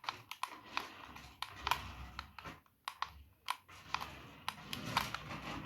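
Toy radio-controlled rally car driving on a hard indoor floor: a low rumble that swells twice, with irregular clicks and knocks throughout.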